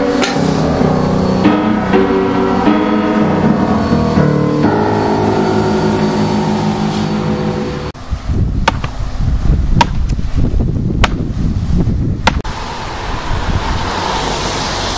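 Background music with steady notes for about the first eight seconds, then it cuts off suddenly to a loud, uneven low rumble marked by four sharp clicks and a rising hiss near the end.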